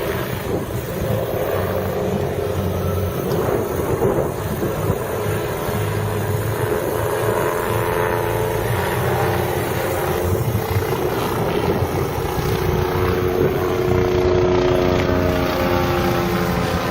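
Helicopter in flight, its rotor and engine running steadily, with a tone that shifts slightly in pitch in the second half.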